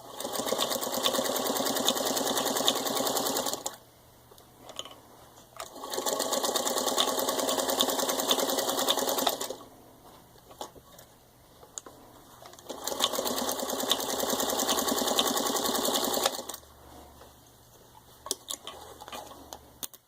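Freshly serviced and rewired 1954 Singer 221 Featherweight sewing machine stitching through four layers of denim in three runs of about three and a half seconds each. There are short pauses with a few small clicks between the runs.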